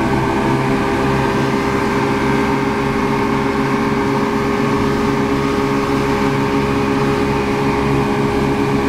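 Speedboat engine running steadily at speed, an even loud drone over the rush of the churning wake.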